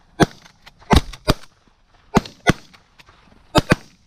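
Several shotguns firing a ragged volley of about eight shots, some in quick pairs, each a sharp crack.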